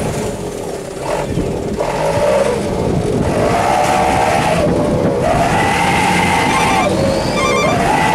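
Truck engine revving up and down several times, its pitch rising, holding and falling again every second or two.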